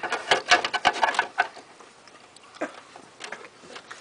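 A plastic toy figure handled and shifted about on a plastic toy bed: a quick run of clicks and taps for about a second and a half, then a few scattered ticks.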